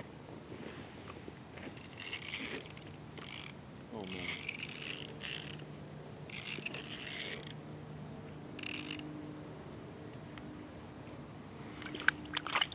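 Small spinning reel on an ultralight ice-fishing rod being cranked in about five short bursts, its gears whirring, as a hooked sunfish is reeled up through the ice hole.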